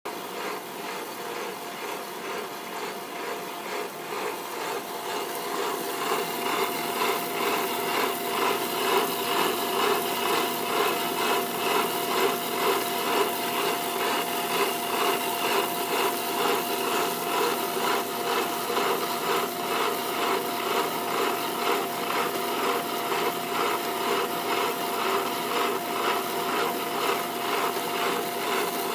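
CocoaTown ECGC-12SL melanger running: its granite rollers grind through liquid chocolate in the turning steel drum, a steady whine under a regularly pulsing grinding and scraping. It grows louder over the first several seconds.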